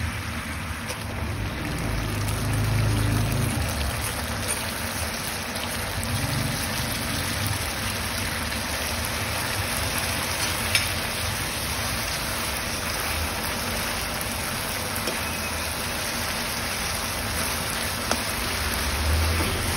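Sugar syrup boiling and sizzling in a nonstick pan with boiled vermicelli stirred into it, a steady hiss like rain. A steel spoon clicks faintly against the pan now and then, most clearly about eleven seconds in.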